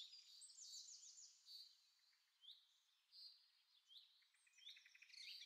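Faint birdsong: small birds chirping and trilling, with a fast trill near the start and short sweeping chirps about every second after that.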